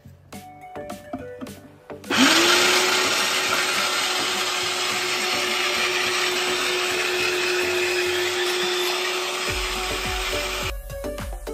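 Electric rotary grater (salad shooter) shredding beetroot: its motor starts about two seconds in, whines quickly up to a steady hum under a loud grinding rush as the beet is pushed through the cutting drum, and cuts off near the end.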